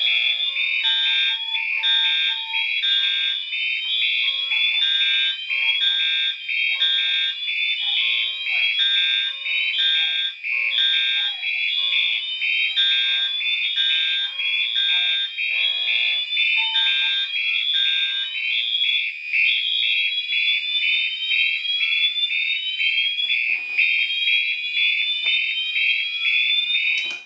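A collection of fire alarm horns sounding together at full volume: pulsing electronic tones overlapping with sweeps that rise again and again. Some of the lower pulsing tones drop out partway through, and the whole din cuts off abruptly at the very end as the system is shut down.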